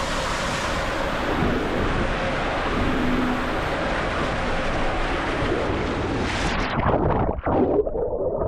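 Steady rushing of water and air while riding down a water slide, which turns abruptly muffled and uneven about six and a half seconds in.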